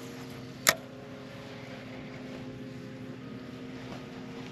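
Micro skiff's motor running steadily, a hum with several steady pitches. A single sharp click sounds about two-thirds of a second in.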